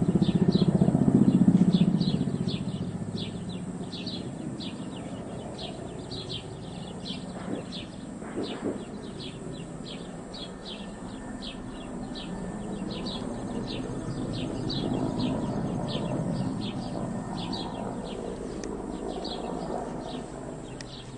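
Helicopter rotor and engine droning overhead, loudest in the first couple of seconds, fading, then swelling again past the middle as it passes. High chirping repeats through it a few times a second.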